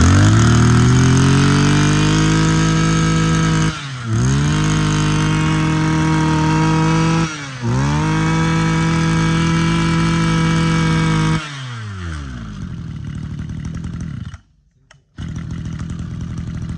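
Mitsubishi TL26 26cc two-stroke brush cutter engine revved up three times, each held at high revs for about three seconds with a short drop between. It then falls back to a steady idle.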